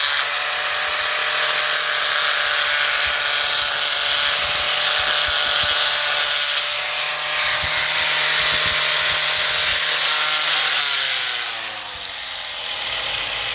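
Electric grinder running while grinding a flat side onto a steel wheel stud, with a steady motor tone under a hissing grind. About 11 seconds in it is switched off and winds down, its pitch falling.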